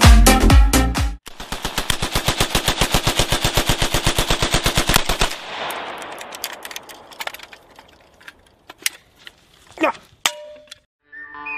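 AK-pattern rifle fired on full automatic: one long burst of rapid, evenly spaced shots lasting about four seconds, stopping suddenly and trailing off in echo, followed by a few single sharp hits. Dance music plays briefly at the start.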